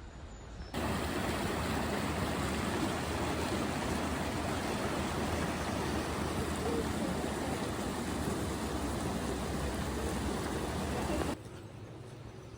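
Rushing water of a forest stream, a steady even rush that starts abruptly about a second in and cuts off abruptly near the end.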